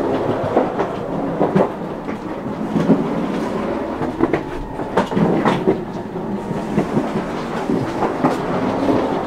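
Stockholm commuter train (SL X60 unit) running, heard from inside the carriage: a steady rumble with irregular knocks and clacks from the wheels over the rail joints.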